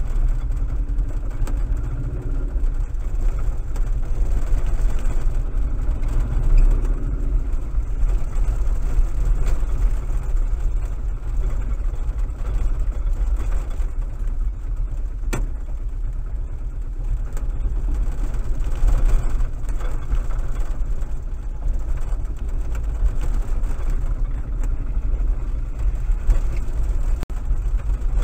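Small utility vehicle's engine running with a steady low rumble, heard from inside its cab as it drives slowly. There is one sharp click about halfway through.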